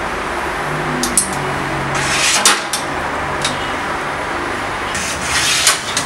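A long steel hook rod scraping and clinking against a stainless-steel oven tray: a few sharp clinks and two longer scrapes about three seconds apart, over a steady background rumble.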